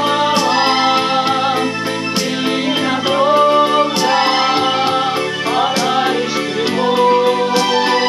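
Song music: a sung melody with held, wavering notes over keyboard accompaniment and a steady beat.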